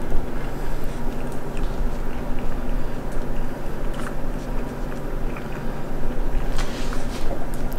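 A person chewing a mouthful of burger, with small wet mouth clicks now and then, over a steady low hum.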